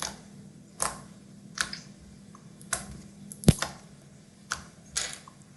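About seven sharp, irregular clicks and taps from slime and its small plastic container being handled. The loudest, a click with a dull thud, comes about three and a half seconds in.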